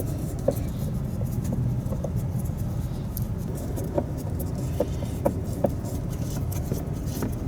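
Scattered light clicks and ticks of hand tools working loose the fasteners of the centre-console handrest, over a steady low hum.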